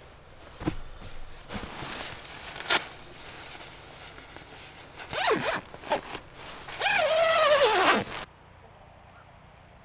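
Nylon sleeping bag rustling as it is handled, then its zipper pulled: a short zip about five seconds in and a longer, louder one near the end, after which the sound drops away abruptly.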